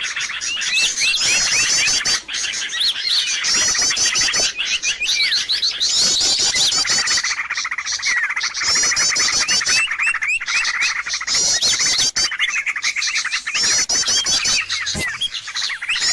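Dense, noisy chorus of many small birds chirping and twittering without a break, with quick trilled phrases recurring every few seconds: a bird-lure recording.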